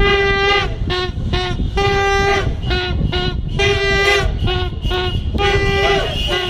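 Plastic horns blown in a repeating rhythm: a long toot, then a few short ones, over and over about every two seconds.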